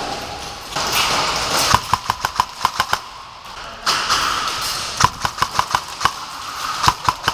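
Airsoft guns firing quick strings of sharp shots, about five or six a second, in three runs: a longer one about two seconds in, another about five seconds in, and a short one near the end, over a steady hiss.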